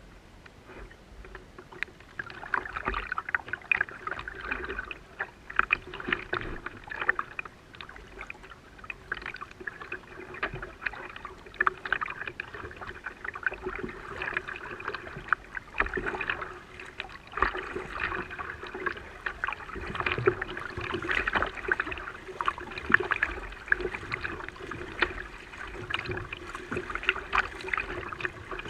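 Water splashing and gurgling around a kayak as it is paddled along, with irregular splashes from the paddle strokes, starting about two seconds in.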